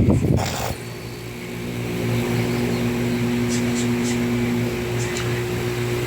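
A loud low rumble cuts off about half a second in. A steady mechanical hum with a few light clicks follows.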